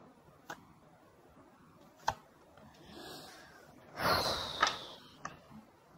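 Off-camera handling noise: a few light clicks and a brief rustling scrape about four seconds in.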